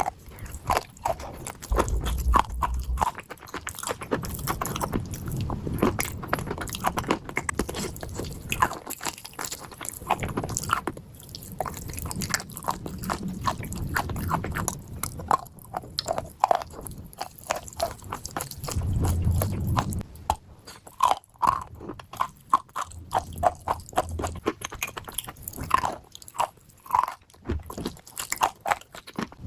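Dry clay chunks being bitten and chewed: a long run of irregular crunches and sharp crackles.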